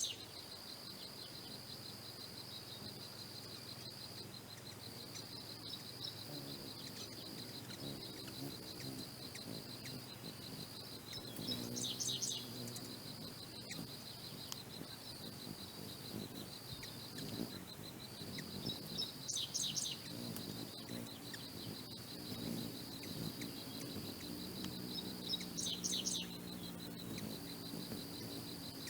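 Hummingbird wings humming low as birds hover and come and go at a feeder, with three short bursts of high chirps roughly seven seconds apart. A steady, rapidly pulsing insect trill runs underneath.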